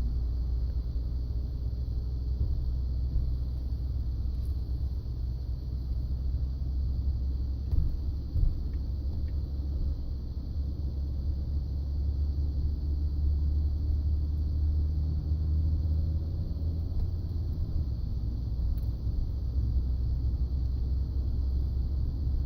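Low, steady rumble of a Ford F-150 on the move, with faint tones drifting up and down in pitch. Two short knocks come about eight seconds in.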